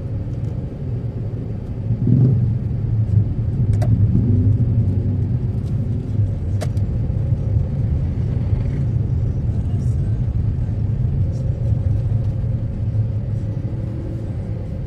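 Suzuki Karimun Wagon R's 1.0-litre three-cylinder engine and tyres on the road while driving: a steady low rumble that grows louder about two seconds in. Two brief clicks come through a few seconds apart.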